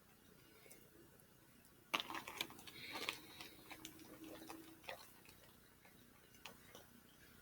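Eating sounds: a sudden burst of clicking and clatter starts about two seconds in and lasts a few seconds, then thins to scattered faint clicks.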